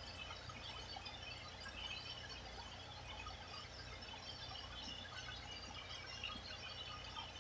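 Sliced onions sizzling in a hot pan: a steady, fine crackling.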